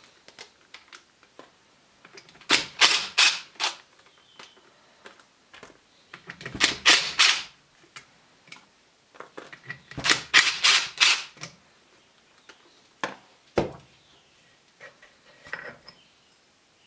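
Cordless impact driver hammering bolts loose on a pressure-washer pump's side cover, in three bursts of about a second each. Single knocks and clicks of the bolts and cover being handled come between them.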